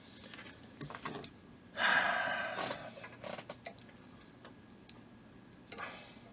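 A frustrated person sighing heavily, a breathy exhale about two seconds in and a fainter one near the end, over small scattered clicks of a screw and plastic model parts being handled.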